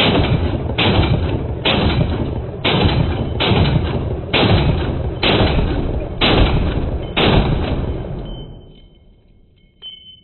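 Rifle firing a string of about nine shots, roughly one a second, each followed by a long rolling echo. The echo fades out after the last shot, about seven seconds in.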